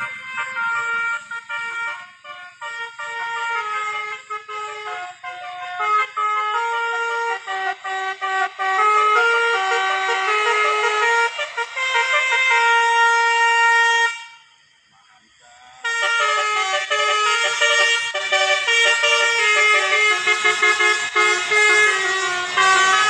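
Bus 'telolet' horn, a set of multi-tone musical air horns, playing a loud tune of quick stepped notes. It stops for about a second and a half some fourteen seconds in, then starts again.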